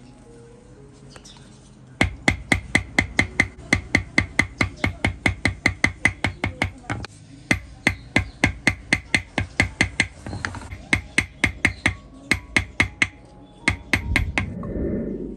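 Small hammer tapping a gold chain against a metal anvil block in quick, even strokes, about five a second, each with a short metallic ring. The strokes begin about two seconds in, pause briefly near the middle, then grow sparser and irregular toward the end.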